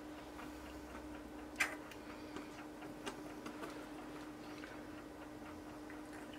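Light clicks and taps of a wooden skewer against a small cup and the mould as mica mixed with oil is dabbed onto raw soap, with one sharper tap about a second and a half in, over a steady low hum.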